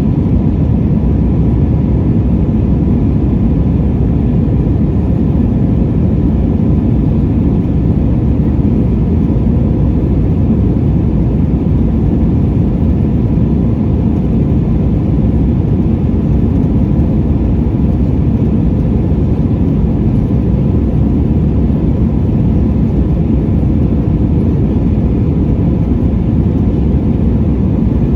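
Steady jet engine and airflow noise of an Airbus A320's IAE V2500 turbofans, heard inside the cabin, a low, even rumble with a faint steady tone above it and no change in level.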